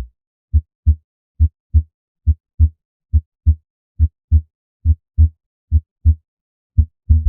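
Recorded human heart sounds through a stethoscope: a regular lub-dub rhythm of paired low thumps, about 70 beats a minute.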